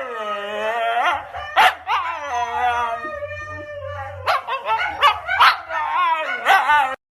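A dog howling in long, wavering notes, cut off suddenly near the end.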